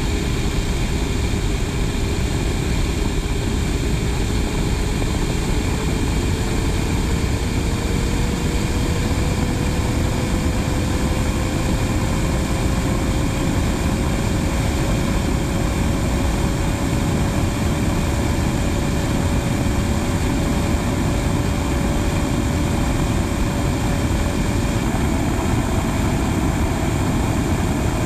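Steady, loud roar of a Blue Angels F/A-18 Hornet's jet engines in flight, mixed with air rushing over the microphone. A steady whine through it slowly rises in pitch and steps up near the end.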